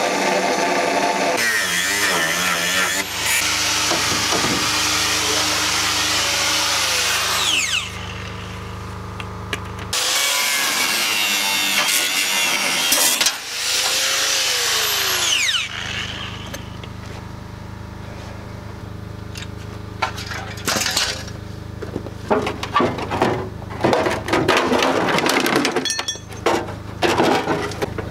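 Angle grinder cutting through the seized seat-box fixings on a Land Rover Series 3 body in two long cuts, each ending with the disc spinning down in a falling whine. Later, from about twenty seconds in, a run of metal clanks and rattles as the seat box is worked free.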